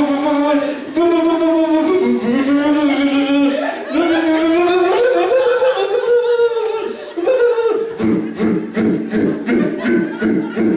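A voice holding long sung notes that step and slide upward, then breaking into a quicker pulsing pattern in the last few seconds.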